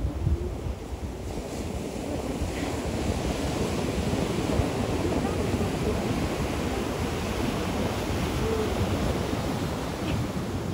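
Surf breaking and washing over the shallows at a river mouth, a steady rushing of waves, with wind buffeting the microphone.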